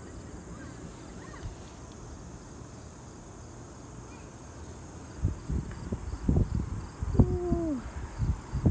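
Open chairlift chair riding its cable: a steady low rumble at first, then from about five seconds in irregular knocks and rattling as the chair comes up to a lift tower, with a short falling squeal near the end. The chair is shaking on the line.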